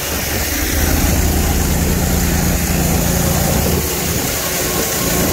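An engine running steadily with a low hum, under a constant rushing noise from wind on the microphone and granular nitrogen-sulfur fertilizer pouring from a loading auger into a semi-trailer hopper.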